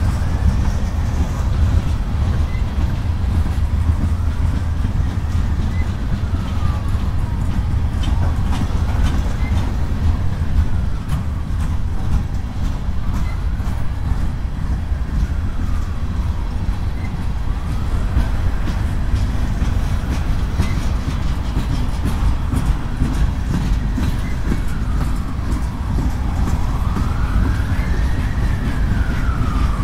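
Freight train cars (covered hoppers and boxcars) rolling past on the rails, a steady low rumble. A siren wails slowly up and down behind it, rising and falling about every four seconds.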